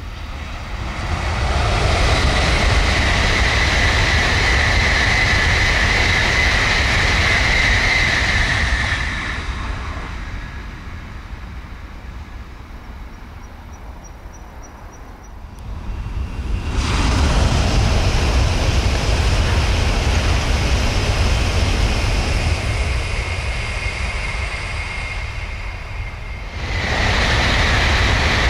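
N700-series Shinkansen trains passing at high speed: each pass is a loud rushing noise with a steady high whine, building over a second or two and lasting several seconds. Two passes go by, and a third begins near the end.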